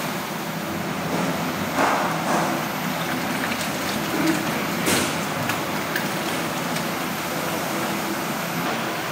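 Large planetary stand mixer running steadily, its beater churning a thick green bean paste in a steel bowl, with a few brief knocks and clinks about two and five seconds in.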